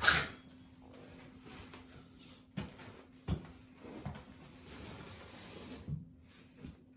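Steel trowel scraping and knocking while spreading thin-set cement over an under-floor heating mat: a loud scrape at the start, then a few scattered knocks and light scraping.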